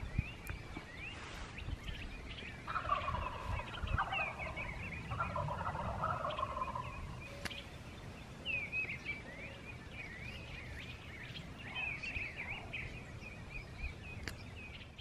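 Wild turkey gobbling twice, two rapid rattling gobbles a couple of seconds apart, over a steady chorus of small songbirds chirping.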